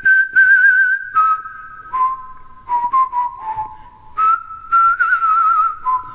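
A person whistling a slow tune of held, slightly wavering notes that step downward and then rise again about four seconds in.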